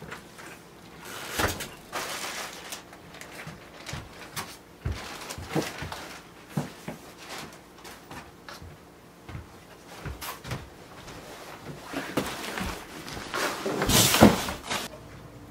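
Scattered knocks, clicks and bumps of someone moving about and handling things indoors, such as doors and cupboards, with a louder clatter near the end.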